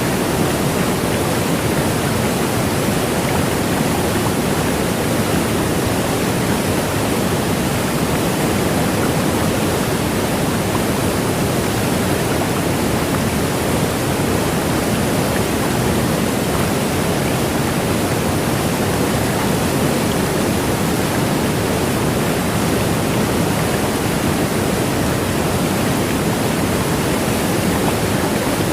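Waterfall: a steady rush of falling water with no breaks or changes.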